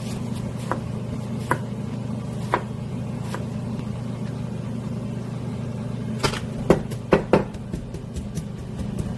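Steady low hum of a kitchen appliance, with scattered light clicks and knocks from handling things on a kitchen counter. A quick run of sharper clicks comes about six to seven and a half seconds in.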